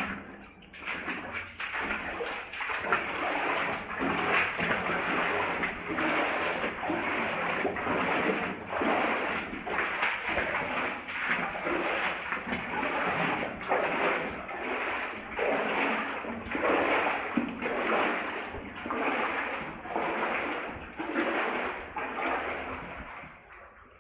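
Footsteps wading through water in a flooded rock tunnel, a splash and slosh with each stride, about one a second. The splashing dies away just before the end.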